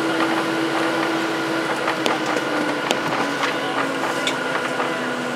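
Cabin noise of a Boeing 737-700 taxiing, its CFM56 jet engines at idle: a steady hum and hiss with a tone that slowly falls in pitch, and a few scattered light clicks.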